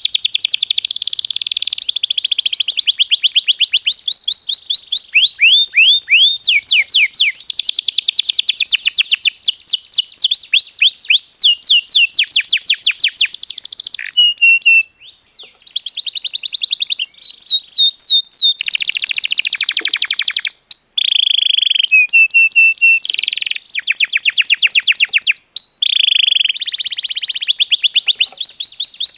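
Domestic canary singing a continuous song of fast trills: rapid runs of repeated high notes, many sweeping down in pitch, with a brief pause about halfway through.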